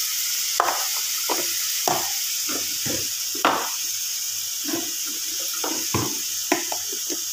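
Shrimp sizzling in a butter and egg sauce in a small frying pan, a steady high hiss, with a utensil knocking and scraping against the pan at irregular intervals as the sauce is stirred.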